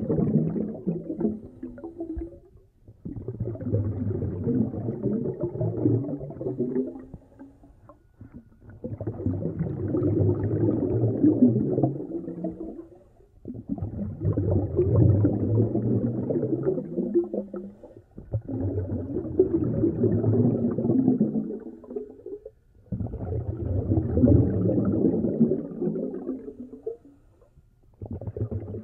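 Muffled, gurgling sea water surging in slow swells, about six of them, each building and fading over a few seconds with short lulls between, like waves washing in and drawing back.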